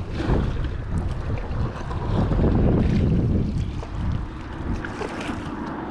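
Wind buffeting an open-air camera microphone as a low, uneven rumble that swells about two seconds in, over sea water washing against a rocky shore.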